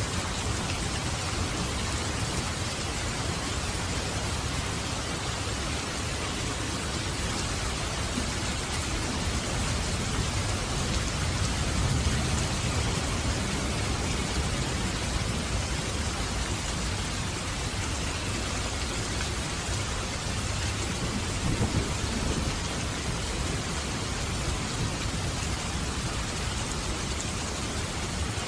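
Steady heavy rain with low rolling thunder, swelling about ten seconds in and again a little past twenty seconds.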